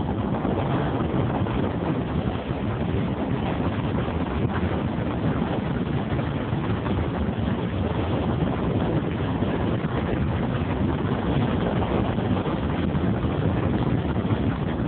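Steady wind rush on the microphone over the low drone of a car driving along a road.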